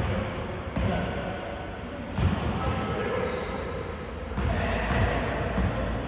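Basketball bouncing on an indoor court floor: a few separate heavy thuds, irregularly spaced a second or two apart, over a background of voices.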